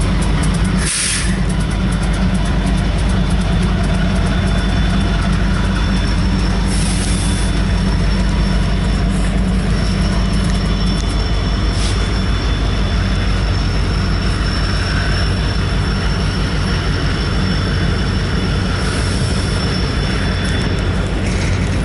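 Freight train cars rolling past with a steady rumble of wheels on the rails, with a thin high-pitched wheel squeal in the later part.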